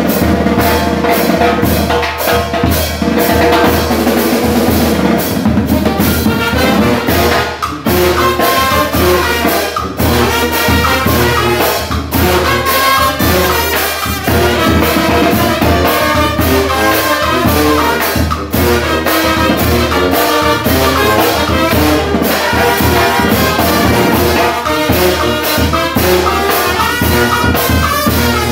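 Live Nicaraguan chichero-style brass band playing: trumpet, saxophone and trombones over a sousaphone bass, with a bass drum, cymbal and a large metal-shelled drum keeping a steady beat.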